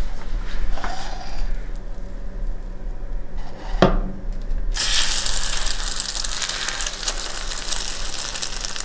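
A single knock shortly before halfway, then, about five seconds in, an egg-soaked slice of bread hits very hot bacon grease in a cast iron skillet and starts sizzling loudly, frying on steadily.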